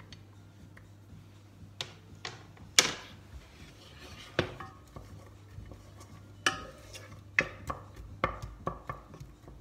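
Wooden spoon knocking and scraping against a nonstick saucepan as chopped onion is stirred: irregular sharp knocks, the loudest about three seconds in, with more clustered in the second half.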